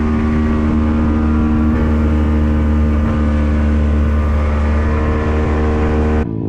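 A motor running steadily at cruising speed, with an even hum and a rushing noise over it; it cuts off abruptly near the end.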